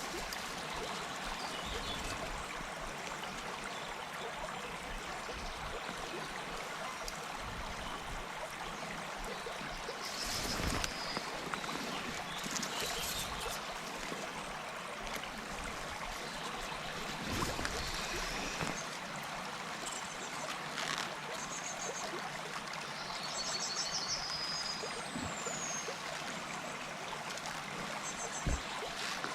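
River water flowing and trickling steadily, with a few faint, short high-pitched chirps in the second half and a single soft knock near the end.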